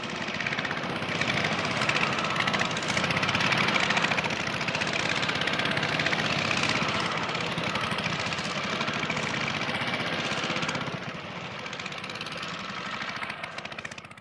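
Motorcycle engine running steadily, fading in at the start. It drops in level at about eleven seconds in and fades away at the end.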